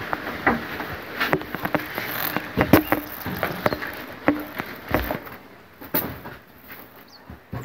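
Irregular clicks and knocks of people moving about and sitting down on a bench-seat, with a low thump about five seconds in.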